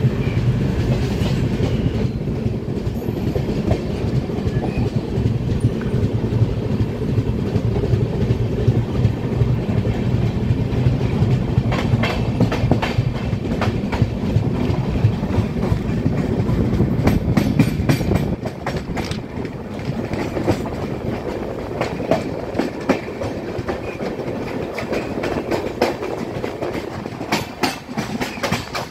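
Wheels of a Rajdhani Express's LHB coaches rolling slowly over the track through a junction. A steady low rumble carries a string of clacks as the wheels cross rail joints and points, thickest in the middle; the rumble eases somewhat in the second half.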